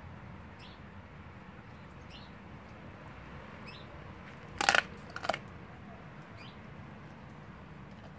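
A young Blue Bay Shepherd crunching through the bones of a raw rabbit rib cage, with two loud bone crunches about half a second apart a little past the middle.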